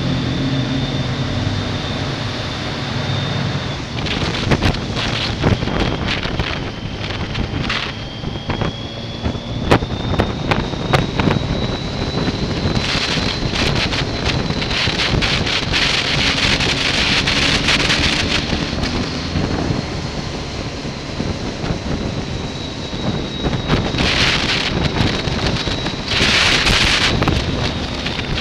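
A motorcycle on the move, its engine running under heavy wind rush on the microphone, with a thin steady high whine throughout. Loud gusts of wind hiss swell about halfway through and again near the end.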